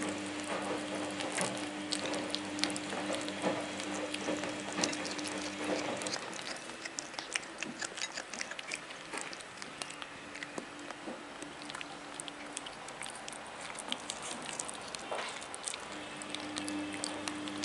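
Scottish Fold kittens chewing and lapping at chunks of salmon on a plate: a quick, irregular run of small wet clicks and smacks. A steady low hum sounds under it for the first six seconds, stops, and comes back near the end.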